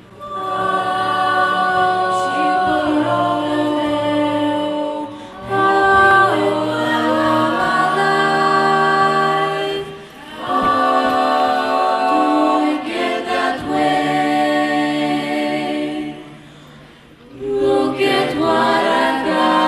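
A school girls' choir singing in several parts, in sustained phrases with short breaks about 5 and 10 seconds in and a longer one near 17 seconds.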